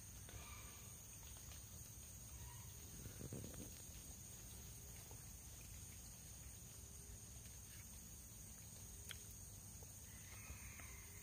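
Near silence beside a forested river, with a faint, steady high-pitched insect drone.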